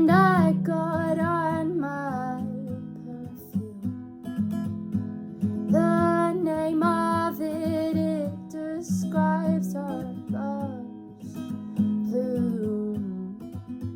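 Strummed acoustic guitar with a woman singing in phrases of a couple of seconds, with short breaks where only the guitar plays.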